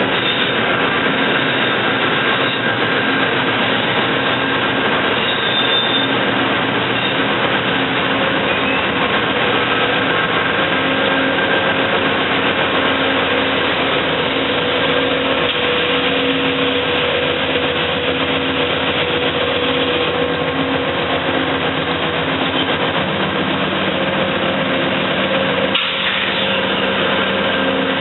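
A train running steadily: a continuous mechanical drone with several held tones that shift a little partway through.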